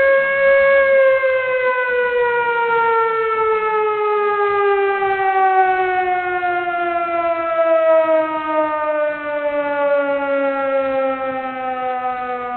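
Emergency warning siren: a single loud wailing tone holds its pitch for about a second, then winds slowly and steadily down to about half that pitch, growing a little fainter near the end.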